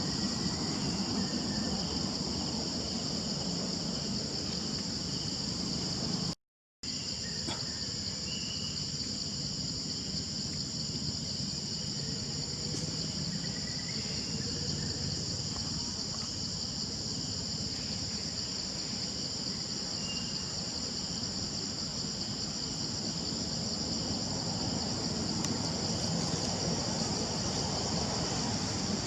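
Steady, high-pitched chorus of insects droning without a break, over a low outdoor background hum, with a few faint short chirps. The sound drops out briefly about six seconds in.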